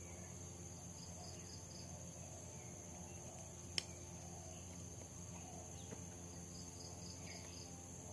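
Faint steady insect buzz with two short runs of quick chirps, and a single sharp click a little under four seconds in.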